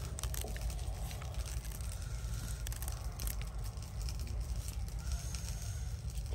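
Crispy grilled water snake being torn apart by gloved hands: small crackles and tearing sounds of charred skin and meat, over a steady low rumble.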